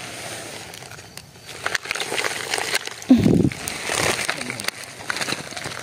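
Footsteps through short grass, with rustling, crackling and scattered clicks, and a short low voice sound about three seconds in.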